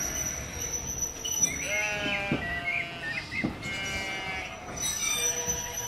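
Sheep bleating several times, over a few sharp clicks.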